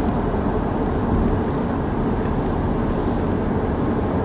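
Steady low rumble of road noise inside the cabin of a moving car.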